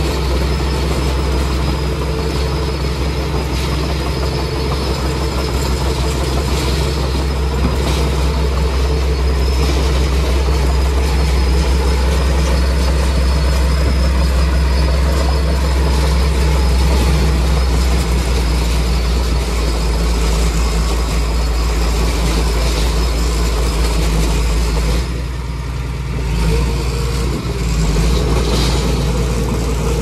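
Diesel engine of a small crawler bulldozer running steadily as the dozer pushes a blade of dirt, with a deep, even drone. The sound eases briefly near the end.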